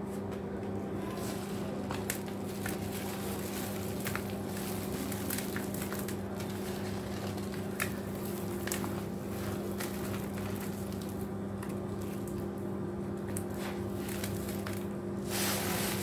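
Gritty white cement clumps being crumbled by hand, the grains crackling in many small clicks as they drop into a bowl of wet cement slurry, with a louder rush of falling grit near the end. A steady low hum runs underneath.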